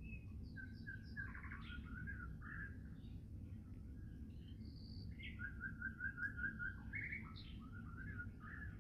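Small songbirds singing: scattered chirps and short phrases, with a quick run of six or seven repeated notes a little past halfway, over a steady low rumble.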